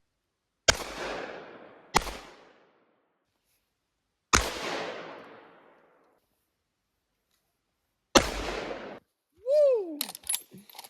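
Four gunshots spaced one to four seconds apart, each trailing off in an echo. Near the end there is a short rising-then-falling tone and a few clicks.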